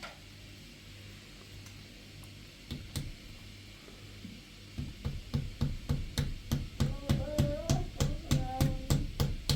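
Low hum with a couple of knocks, then about halfway in a steady beat of thumps, about three a second, with a faint wavering melody over it: music with a drum beat.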